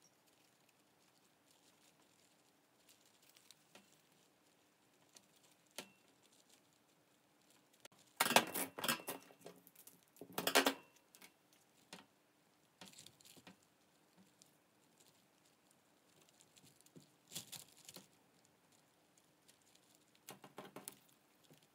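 Scattered light clicks and rustles of hands working plant vines, tape and a plastic nursery pot, in short clusters with the loudest around eight and ten seconds in. Scissors snip tape around ten seconds in.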